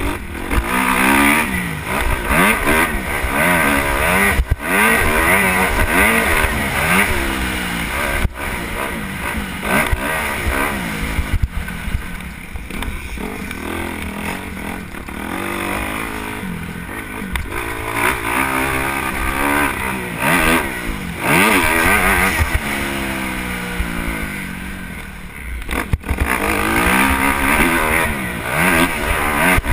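Motocross dirt bike engine revving hard as it rides, its pitch sweeping up and down every second or two through throttle and gear changes.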